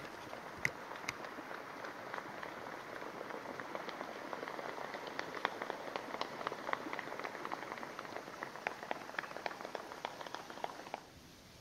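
Swans running across the water to take off, their feet slapping and splashing the surface in a rapid, irregular pattering that grows denser in the second half and cuts off abruptly near the end.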